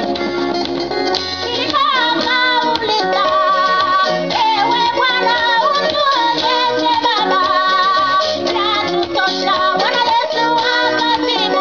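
Women's church choir singing a gospel song together over instrumental backing with a steady bass beat.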